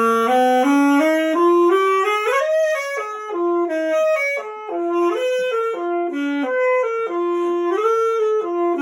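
A reed wind instrument plays a continuous melody, with held notes stepping up and down and a quick upward slide about two and a half seconds in.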